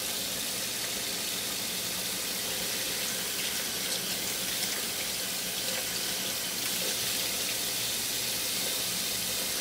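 Tap water running steadily onto the lid of a stainless steel pressure cooker in a stainless steel sink and splashing off it: cold water poured over the cooker to depressurize it before opening.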